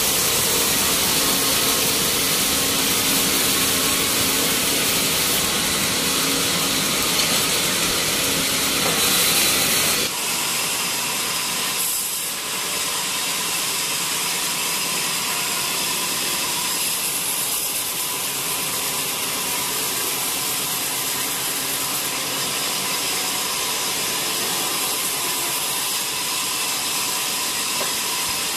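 Horizontal band sawmill running and cutting through a teak log, a steady hiss with a faint whine. About ten seconds in the sound changes abruptly and the deep rumble drops away.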